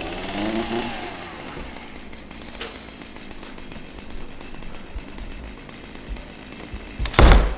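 Chainsaw engine running, its pitch rising and falling in the first second and then running on steadily. A single loud thump comes about seven seconds in.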